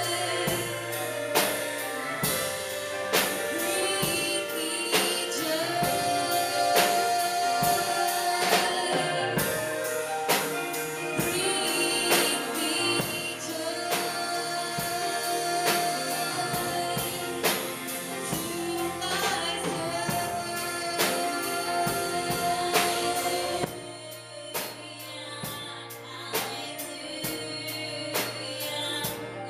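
Gospel song sung over accompaniment with a steady drum-kit beat. Near the end the singing drops out and the accompaniment goes on more quietly.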